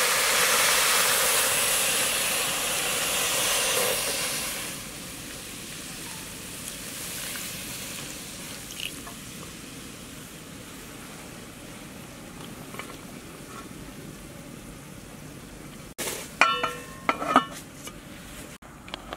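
Liquid poured in a thin stream into a metal pot over a whole chicken, a steady splashing hiss for about four and a half seconds that then drops away to a low background. About three seconds before the end, an aluminium pot lid clanks and rings several times as it is set on the pot.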